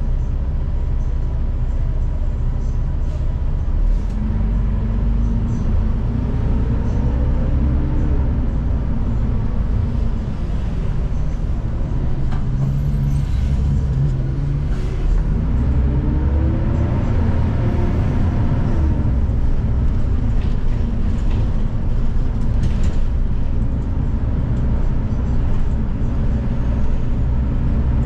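City bus engine and drivetrain running, heard inside the bus from the rear seat: a steady low drone with a whine that rises and falls twice as the bus speeds up and slows down.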